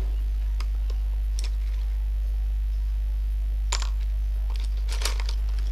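Steady low hum, with a few faint clicks and light taps, a little louder past the middle and near the end.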